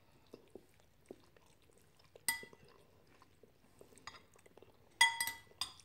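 Metal spoon clinking against a bowl: one ringing clink about two seconds in and a quick cluster of clinks near the end, with faint chewing between.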